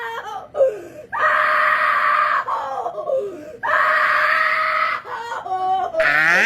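A person screaming: two long, steady held screams of about a second and a half each, with short vocal sounds between them and a rising vocal glide near the end.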